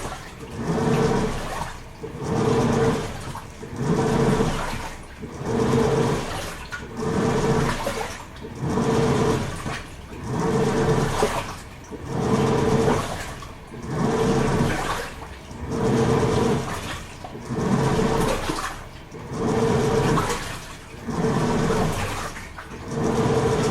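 Toshiba AW-42SEE4 fully automatic top-loading washing machine agitating its load: the pulsator motor hums and the water churns in surges about every two seconds, dipping between each as the pulsator reverses direction.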